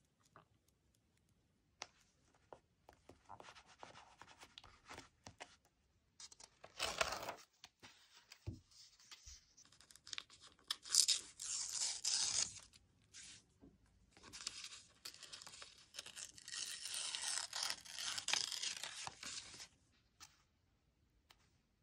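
Cream lined paper being torn by hand in several slow rips, the longest near the end, with light paper handling and small clicks between.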